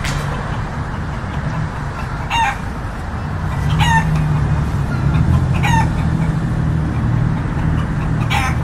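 Four short, high animal calls, each dropping in pitch at its end, spaced one to three seconds apart, over a steady low engine hum.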